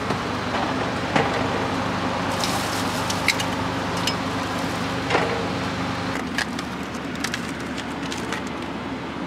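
Knocks and clicks of bottles and food being packed into a portable car fridge, over a steady low mechanical hum that drops about six seconds in.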